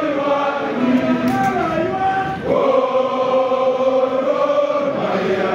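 Football supporters in the stands singing a chant together, many voices at once, holding one long note through the second half; a celebration chant for their team's win.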